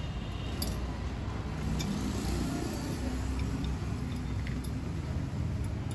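Steady low rumble of motor-vehicle noise, with a few faint metallic clicks.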